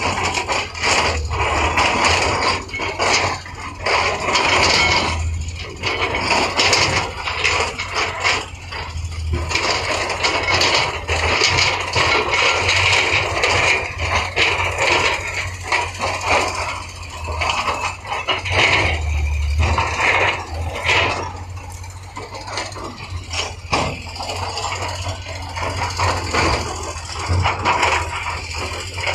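Heavy construction machinery at work: an engine running low and steady under irregular scraping, rattling and knocks.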